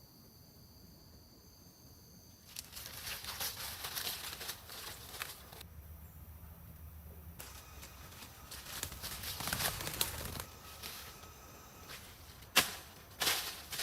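Rustling and crackling of material being handled, in stretches, then a sharp knock near the end followed by a few smaller knocks.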